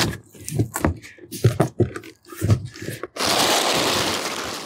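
Unpacking a cardboard bike box: scattered rustles and knocks as hands work inside the box, then from about three seconds in a dense, continuous crinkling of the plastic packing sheet being pulled out.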